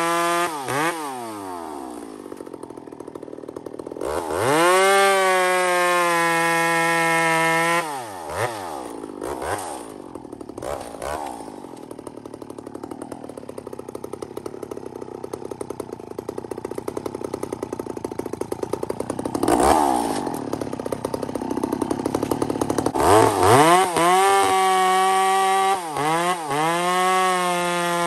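Gas two-stroke chainsaw bucking firewood rounds. It revs to full throttle while cutting and drops back to a ticking idle between cuts, with a long idle in the middle before it revs up again near the end, the pitch sagging as the chain bites.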